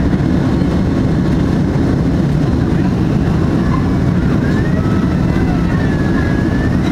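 Steady rumble of a Boeing 767-300's twin jet engines at climb power, heard inside the cabin just after takeoff, with a faint wavering high tone coming in over the last couple of seconds.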